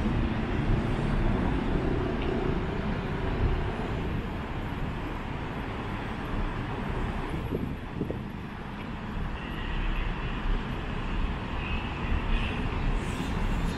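Busy city road traffic, cars and buses passing on the roads below in a steady rumble.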